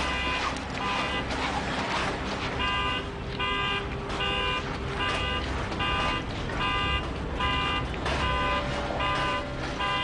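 Car alarm honking its horn over and over at an even pace, nearly two honks a second, over a steady low rumble.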